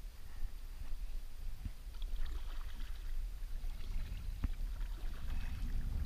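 Kayak paddle strokes splashing in the water, starting about two seconds in, over a low wind rumble on the microphone. A single sharp knock comes midway through the splashing.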